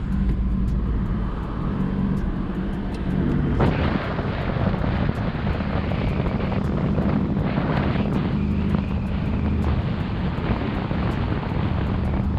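Car engine running steadily, with a rushing noise of wind and road that grows suddenly louder about three and a half seconds in.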